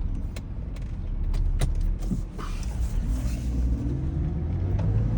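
2008 BMW X3 running as it is driven on a test drive, a steady low rumble with a few sharp clicks and a tone that rises from about three seconds in as it picks up speed. The engine keeps running while moving, the sign that the new VVT solenoids have cured the stalling.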